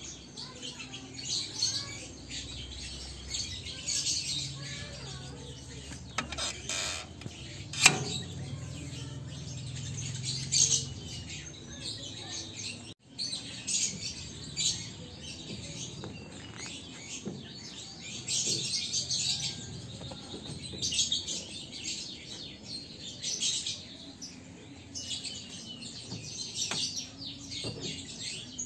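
Small birds chirping over and over in high, quick calls, with a low hum during the first third. A single sharp knock about eight seconds in is the loudest sound.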